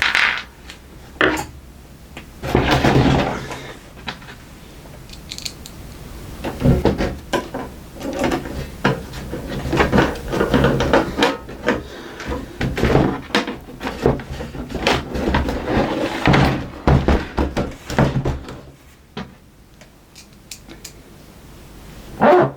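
VCR cover and screws being handled and fastened: irregular clicks, knocks, rattles and scrapes, spread unevenly, with a quieter stretch near the end.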